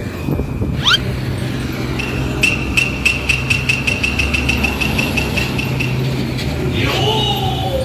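A heavy road vehicle's engine running with a steady low rumble. Over it come a short rising whistle about a second in, then a steady high tone with quick ticks at about five a second for some four seconds, and near the end a falling glide that settles into a held tone.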